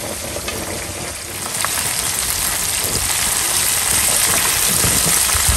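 Pieces of Bombay duck (cá khoai) frying in hot oil: a steady sizzle that grows louder about a second and a half in.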